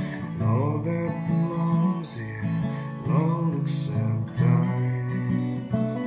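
Acoustic guitar playing chords alone, a few sharp strums standing out among held, ringing notes.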